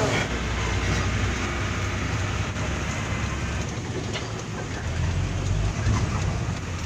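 Mitsubishi Fuso 6x4 dump truck heard from inside its cab while driving: a steady low rumble of engine and road noise, with a few light knocks.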